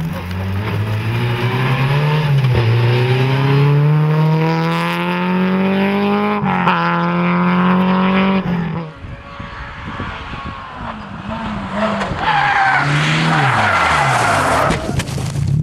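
Renault Clio Ragnotti rally car at full throttle, its engine note climbing and dropping back twice at upshifts. After a break, the engine revs rise and fall as the car slides, with a hiss of tyres on loose gravel and dust near the end.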